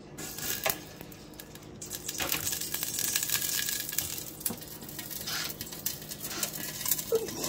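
Metal tongs clicking and rattling against a toaster oven's wire rack and pan as a salmon fillet is set inside, a denser patch of clatter near the middle, then the oven door shutting and its knob being turned, with a few sharp clicks.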